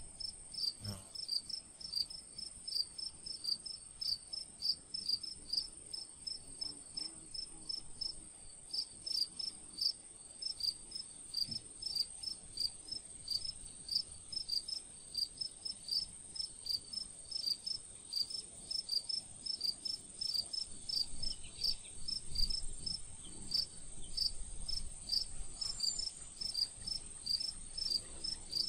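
Insects chirping: a steady high-pitched trill, with another insect chirping in a regular rhythm of a few chirps a second.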